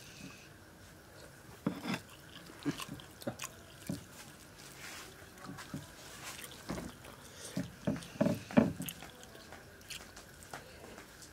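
Close-up eating sounds: wet chewing and lip smacks, irregular and loudest a little past the middle, with soft squishing as fingers mix pulao rice on a clay plate.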